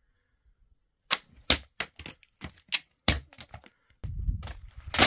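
An irregular run of sharp cracks and knocks, about eight in three seconds. Then a rough rustling, scraping noise, with one loud crack near the end.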